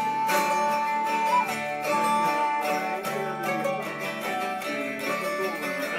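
Informal acoustic jam: ukuleles and a tiple strummed in a steady rhythm with a Weissenborn-style lap slide guitar, while a recorder holds a long high note that steps up about a second and a half in, then moves on to shorter melody notes.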